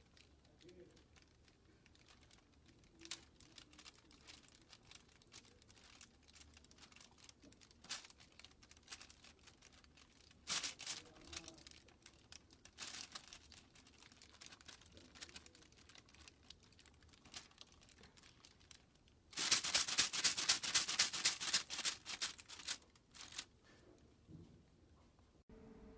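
Rubber-band-powered ornithopter's flapping wings: a dense run of rapid flaps lasting about four seconds, starting about twenty seconds in, after scattered light clicks and rustles.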